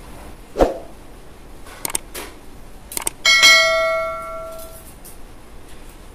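Bell-chime sound effect of a subscribe-button animation, a single ding about three seconds in, just after a couple of sharp clicks, fading away over about a second and a half. A short thump comes about half a second in.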